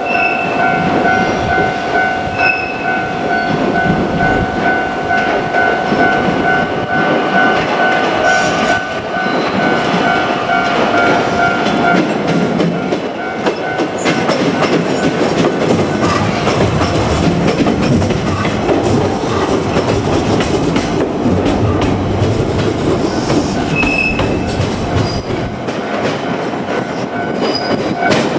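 JR Kyushu 817 series electric train running past the level crossing, its wheels clattering over the rail joints. A steady two-tone ringing, the level crossing's warning bell, sounds over it for about the first twelve seconds.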